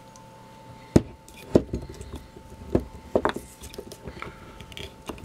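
Metal 'helping hands' soldering stand being set down and its alligator clip clamped onto a small circuit board: a handful of clicks and knocks, the sharpest about a second in. A faint steady tone sits underneath.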